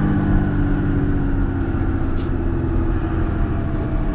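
Mercedes-Benz Citaro Facelift city bus engine heard from inside the bus. The engine note sinks slowly over the first couple of seconds, then runs under a steady road and body rumble, and the note firms up again near the end.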